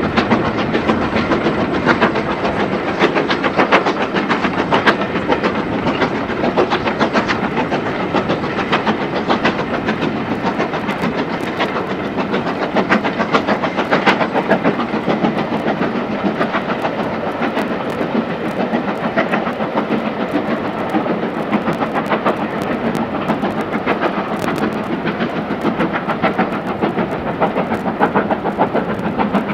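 Ex-Great Western steam locomotive working a passenger train, its exhaust beats coming as steady, rapid chuffing.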